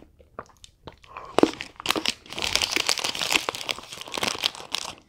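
Chocolate bar wrapper being handled and crumpled: a sharp crackle about a second and a half in, then continuous crinkling and rustling.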